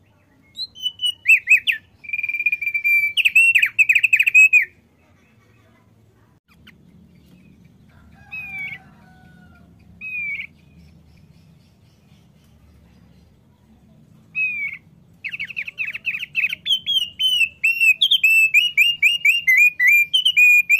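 Caged male thick-billed white-eye (opior paruh tebal) singing: a quick burst of repeated down-slurred whistled notes, a lull with a few single notes, then a long, fast run of notes near the end.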